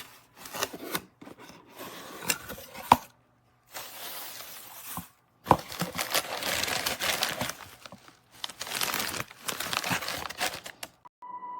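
A bag of cuttlebones being handled, crinkling and rustling in fits and starts, with a few sharp clicks or knocks.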